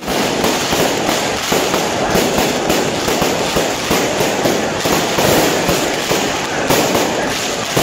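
Aerial fireworks bursting overhead in a dense, continuous crackle of many small overlapping pops and reports.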